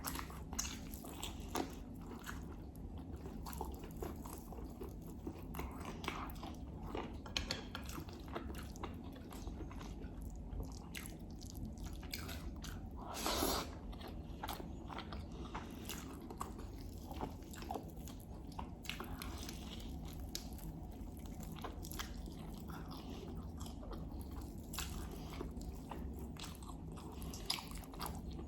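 A person chewing close to the microphone: a steady run of wet smacks and soft crunches, with one louder, longer noise about halfway through.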